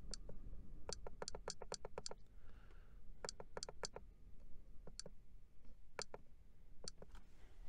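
Buttons on a trail camera clicking as its menu is worked to format the memory card: a quick run of six or seven clicks, then three more, then single clicks spaced about a second apart, over a steady low rumble.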